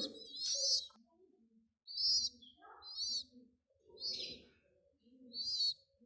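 Pigeons calling: five short, high squeaky calls about a second apart, over soft low cooing. The squeaks fit the begging calls of young squeakers.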